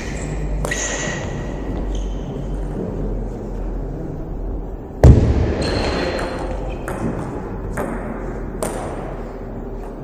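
Table tennis ball being struck back and forth in a rally: sharp clicks of ball on bat and table, roughly one a second, ringing briefly in a large hall. The loudest is a heavy thump about five seconds in.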